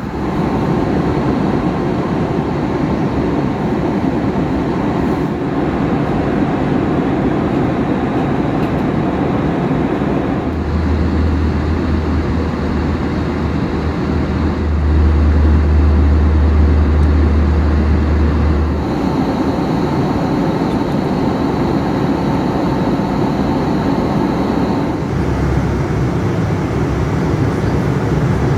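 Steady roar of engine and airflow noise inside an Airbus A321 airliner's cabin at cruise. A low droning hum joins in about a third of the way through and stops about two-thirds through.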